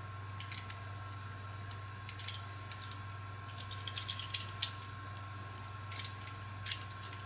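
Light clicks and clacks of a miniature metal spinning reel and an aluminium pen fishing rod being handled and fitted together, in scattered small groups with a quicker run of clicks around four seconds in.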